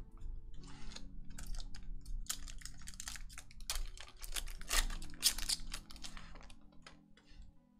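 Foil booster pack wrapper crinkling and tearing as it is ripped open by hand: a quick run of crackles, loudest about five seconds in, then dying away.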